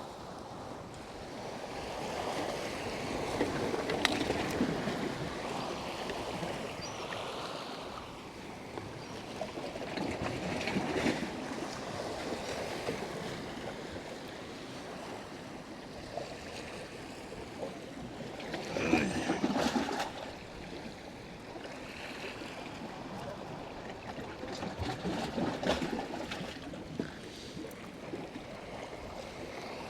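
Surf washing against the rocks of a jetty, swelling and fading roughly every seven seconds over a steady wash of water noise.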